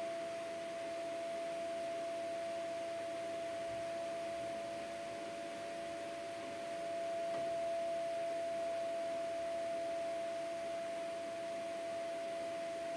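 A steady, unchanging hum tone with a fainter lower hum beneath it, over a faint hiss.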